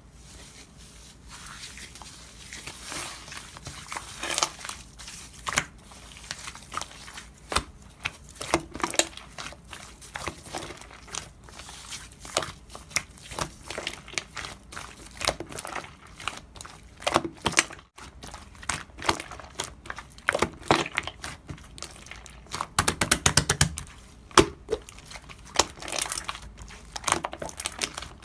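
Slime being squished and pressed by hand, making irregular sticky clicks and pops, with a quick run of rapid pops about three quarters of the way through.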